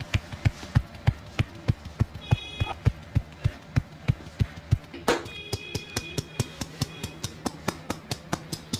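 Percussive massage: hands striking the body in quick rhythmic slaps, about three to four a second. A brief high-pitched tone sounds over it about two seconds in and again from about five seconds.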